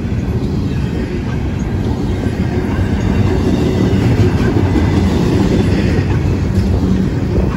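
Double-stack intermodal well cars of a freight train rolling past close by: a loud, steady rumble of steel wheels on the rails.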